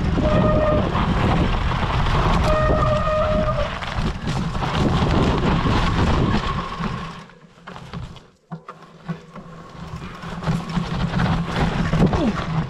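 Mountain bike descending a steep trail: tyre and wind rumble on the handlebar-mounted camera, with two brief steady squeals in the first four seconds typical of disc brakes being dragged. The rumble fades away about seven seconds in as the bike slows, then builds again.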